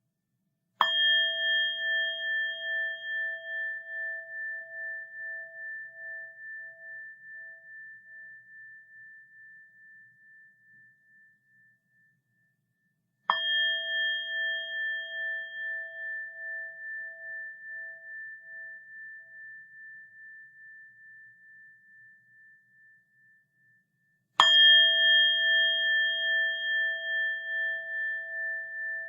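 A bell struck three times, about eleven seconds apart. Each strike rings on in a clear tone that wavers and pulses as it slowly fades over about ten seconds; the last one is still ringing near the end.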